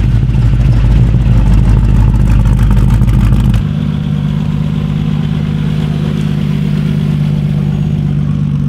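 Mid-1960s Chevrolet C10 pickup driving slowly past with a loud, low engine rumble. About three and a half seconds in the sound cuts to a blue Bugatti-style vintage racing car running at a steady low engine note as it rolls slowly forward.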